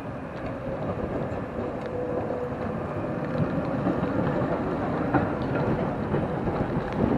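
Articulated tram passing close on wet street rails: a steady rumble of wheels and running gear that builds slightly as it goes by, with a faint held whine about two seconds in.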